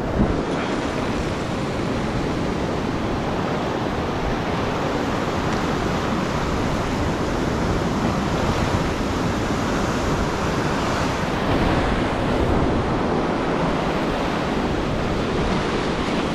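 Sea waves breaking and washing onto the shore in a steady rush, with wind buffeting the microphone.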